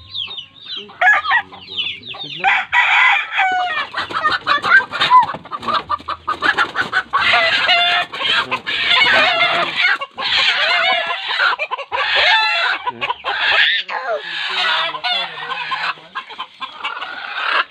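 Native chickens squawking loudly in distress as they are grabbed by hand from a coop and carried off by the legs, the calls growing dense and almost continuous about two and a half seconds in.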